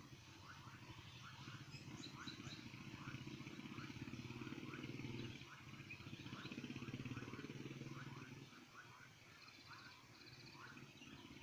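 Faint outdoor background: a low engine hum that swells and then fades away after about eight seconds, over short chirps from a small animal repeating about twice a second.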